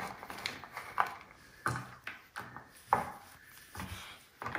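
Chunks of broken chocolate handled on a wooden chopping board and dropped into a stainless steel saucepan: a scatter of light, irregular knocks and clinks.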